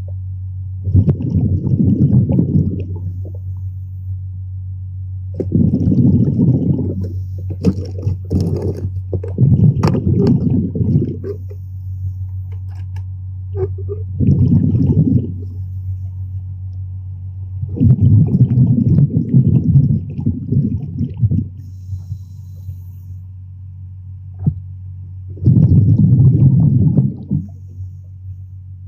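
Underwater, a diver's exhaled breath bubbling out in bursts that last a second or three and come every few seconds, over a steady low hum.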